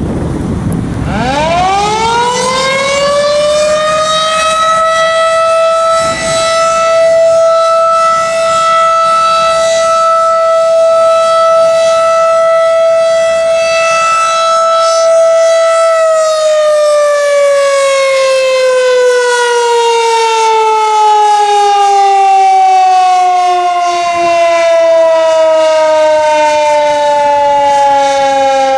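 Federal Signal 2001-DC electromechanical siren sounding the noon signal. It winds up about a second in to one steady tone, holds it for about twelve seconds, then winds down in a slow falling glide.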